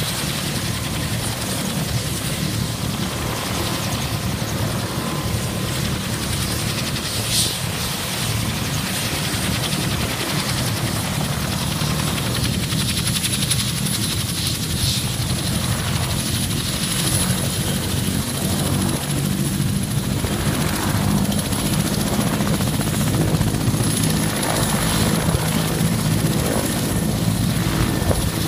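Mil Mi-172 helicopter running on the ground with its rotors turning: a steady, dense beat from the main rotor under a thin high turbine whine that edges slightly higher, the whole sound growing a little louder through the second half.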